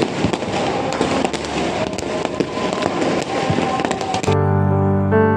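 Firecrackers going off all around: a dense run of sharp bangs and crackling pops. About four seconds in, this cuts off suddenly and piano music takes over.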